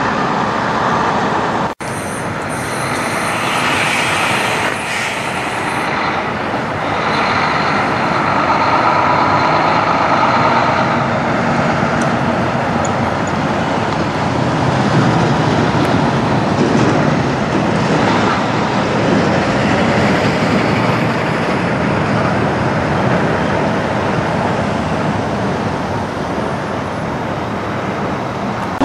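Tractor-trailers driving past: steady diesel engine and tyre noise, with a brief gap about two seconds in.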